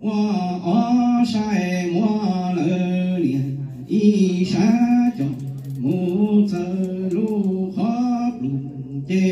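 A man chanting Hmong txiv xaiv verse, a drawn-out melodic recitation that holds long notes and steps between a few pitches, with brief breaths about four and eight seconds in.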